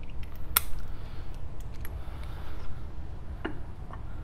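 A few short metallic clicks and clinks of a socket, ratchet and lug bolts being handled while a car wheel is bolted on. The loudest click comes about half a second in.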